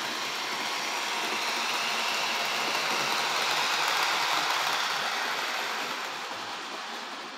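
HO-scale Bachmann diesel locomotive and its train of freight cars running along the model track, a steady mechanical rolling noise of wheels on rails and the locomotive's motor. It grows loudest as the train passes close about four seconds in, then fades as it draws away.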